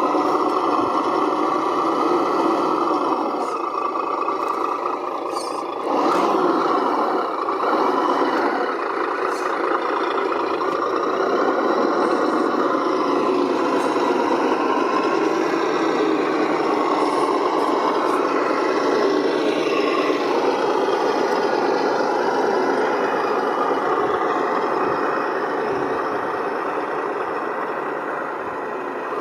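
Simulated MAN V8 truck engine sound played by an ESS-One sound module's small speaker in an RC scale truck, running continuously and rising and falling in pitch with the throttle. It dips briefly about six seconds in, then comes back with a rev.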